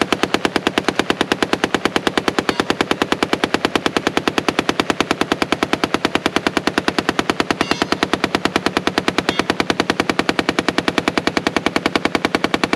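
Machine gun firing one long, unbroken burst of rapid, evenly spaced shots.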